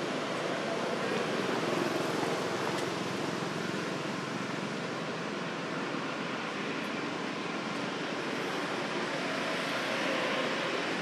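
Steady, even rushing noise of outdoor background ambience, with no distinct calls or knocks standing out.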